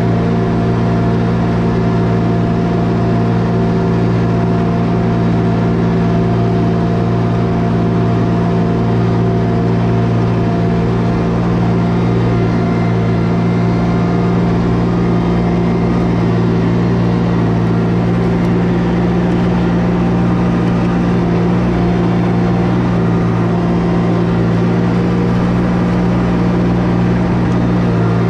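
ASV Posi-Track compact track loader's engine running steadily, heard from the operator's seat in the cab, with an even pitch and level while it carries and grades dirt.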